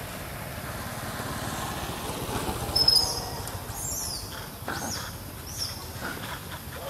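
A burst of short, high-pitched animal squeals peaks about three seconds in, followed by several more brief falling calls, over a steady outdoor noise that swells and fades.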